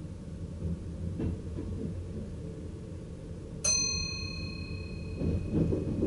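A single bell-like chime in the cab of a VIRM double-deck electric train, struck once about three and a half seconds in and ringing out for a second or two over the train's low, steady rumble. A faint click comes about a second in.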